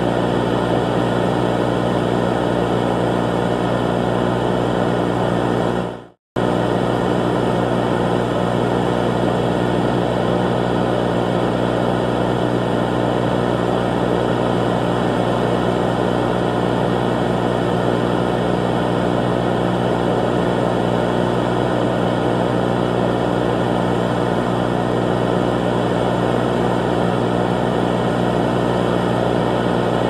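Emergency alert alarm: a loud, steady drone of many layered tones over a hiss. About six seconds in it fades out to silence for a moment, then starts again abruptly.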